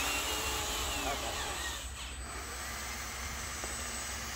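Small electric drive motors and gearboxes of radio-controlled construction models (a loaded dump truck and a bulldozer) whining as they drive. The whine drops in pitch about a second and a half in, then settles into a lower steady hum.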